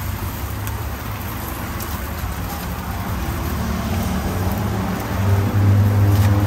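Street traffic: a motor vehicle's engine runs close by, growing louder near the end, over a steady hiss.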